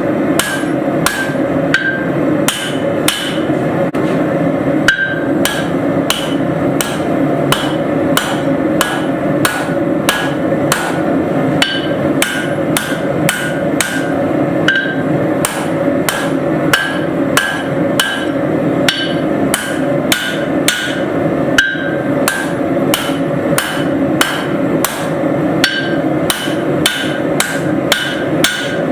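A hand hammer strikes hot steel on an anvil at a steady pace, about two blows a second, each blow with a short metallic ring. A steady hum runs underneath.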